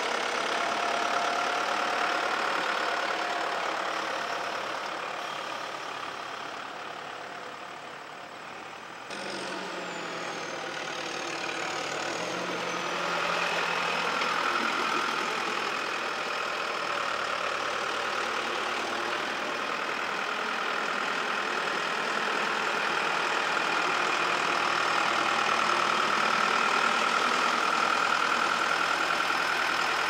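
John Deere tractor's diesel engine running as it drives carrying a loaded grape bin. It fades over the first several seconds, jumps back up in level about nine seconds in, and grows louder toward the end.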